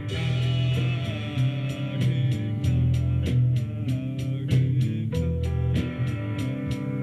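Music led by guitar, with a steady beat of about four sharp strokes a second.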